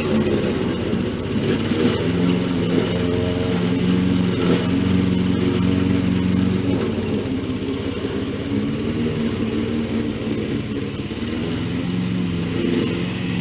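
Petrol lawn mower engine running steadily, its pitch wavering slightly.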